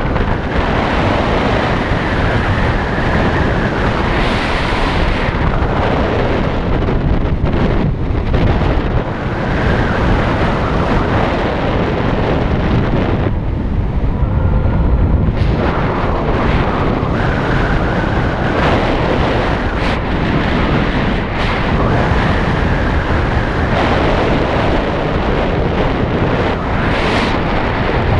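Heavy wind buffeting the microphone during flight, a steady loud rushing that thins briefly about halfway through.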